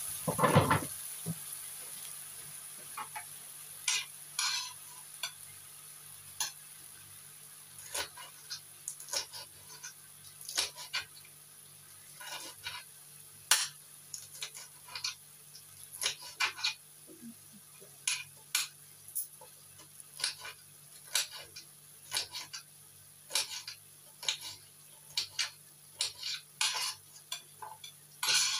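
Pork pieces sizzling in a nonstick frying pan in a little water, the sizzle dying down over the first few seconds, while a utensil stirs and knocks against the pan in irregular sharp clicks. One louder clatter comes just after the start.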